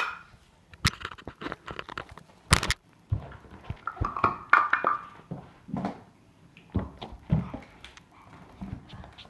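A string of close, irregular knocks, taps and rustling from a phone being handled and carried with its camera covered.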